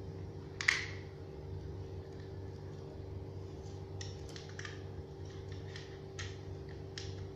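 Laptop keys being pressed: one sharp click with a brief ring under a second in, then a run of light key clicks from about four seconds on, over a steady low hum.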